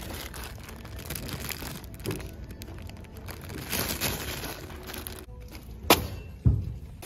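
Clear plastic bag of small plastic parts crinkling and rattling as it is handled, then a sharp click and a low thump near the end as it goes into a plastic shopping basket.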